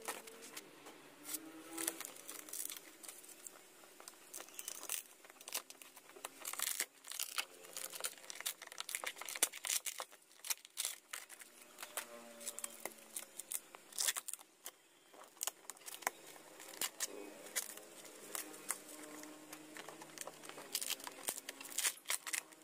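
Thin plywood mold panels being torn and pried off the inside of a fibreglass boat hull: irregular cracks, snaps and scraping of splitting wood.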